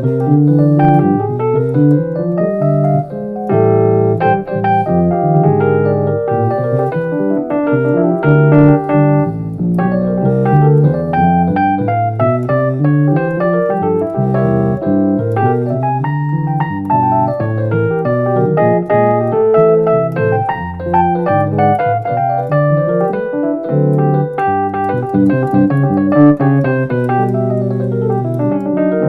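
Roland RD-08 digital stage piano playing an electric piano sound: a continuous keyboard passage of chords over a moving bass line.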